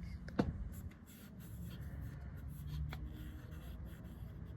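Hands rubbing and handling metal engine parts, with a sharp click about half a second in and a fainter click near three seconds, over a low steady hum.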